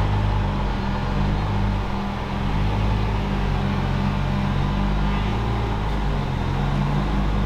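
A heavy engine running steadily as a crane lifts a piece of machinery, a low drone whose pitch and strength rise and ease slightly.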